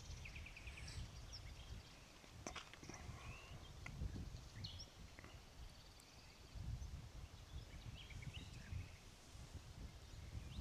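Faint outdoor ambience: a low wind rumble with a few short, distant bird chirps scattered through it.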